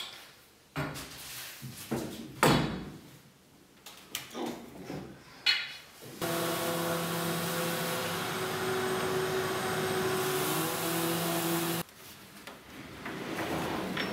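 A few knocks and clatters of clamps and wood being handled, then a random orbital sander on a dust-extraction hose running on a white oak cabinet panel, a steady hiss with a hum, for about six seconds before it stops abruptly. More knocks and rubbing of the wooden cabinet being moved follow.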